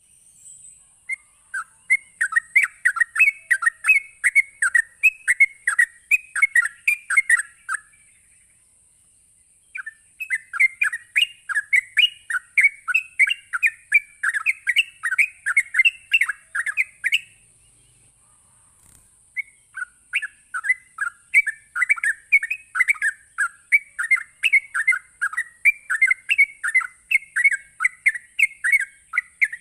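Yellow-vented bulbul (trucuk) singing its rapid 'ropel' song: fast runs of short, bright notes at about four a second, in three long bouts separated by two pauses of about two seconds each. A faint steady high hiss runs underneath.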